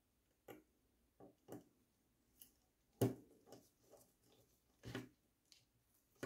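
Light clicks and knocks from handling wires at a plastic screw terminal block, coming irregularly with the sharpest knock about three seconds in.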